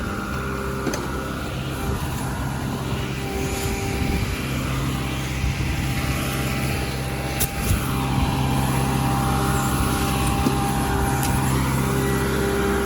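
Excavator engine running steadily, a little louder from about eight seconds in.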